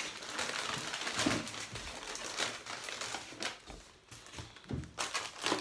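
Plastic grocery packaging crinkling and rustling as items are handled on a table, with a few light knocks.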